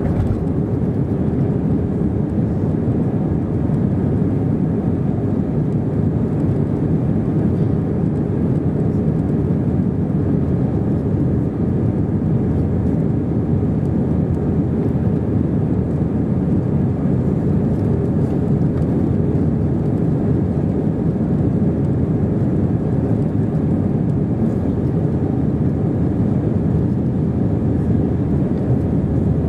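Inside the cabin of an Airbus A320-232 during its initial climb after takeoff: the steady low roar of the IAE V2500 turbofans at climb power mixed with the rush of air over the fuselage, even and unbroken throughout.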